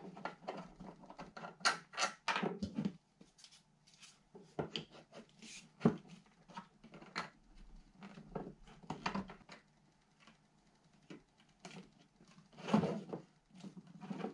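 Hands assembling a metal detector's shaft and coil: irregular clicks, taps and knocks from the parts being handled and fitted together, with a sharp single click about six seconds in.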